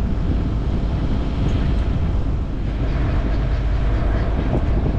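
Steady low rumble of an engine running, mixed with wind buffeting the microphone.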